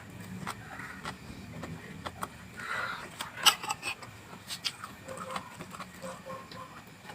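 A person chewing raw vegetables close to the microphone: an irregular run of crunches and wet mouth clicks, loudest about three and a half seconds in.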